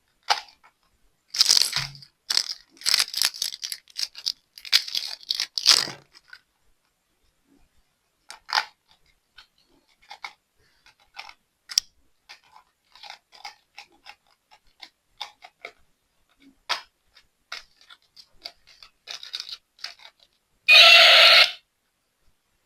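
Crinkling, crunching and clicking of plastic packaging and toy parts being handled, densest in the first few seconds and then sparse. Near the end, one short loud burst of the dinosaur toy's electronic roar sound effect.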